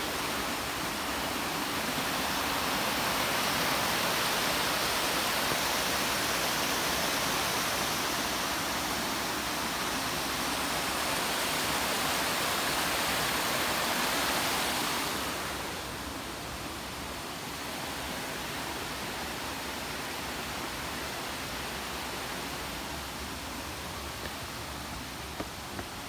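Waterfall water rushing as a steady hiss, growing fainter and duller about fifteen seconds in.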